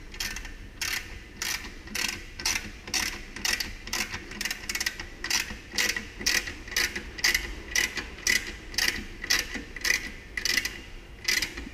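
Ratchet wrench clicking in short, even strokes, about two to three a second, as it tightens the bolt of a motorcycle exhaust clamp.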